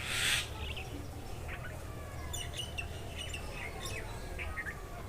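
Small birds chirping in short, scattered high calls over a steady low rumble, with a brief loud hiss right at the start.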